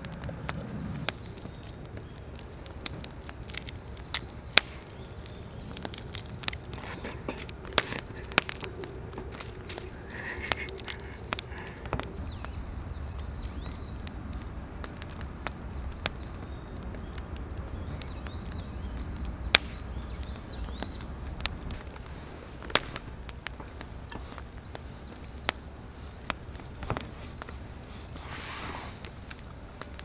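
Wood campfire crackling, with sharp irregular pops scattered throughout over a low steady rumble.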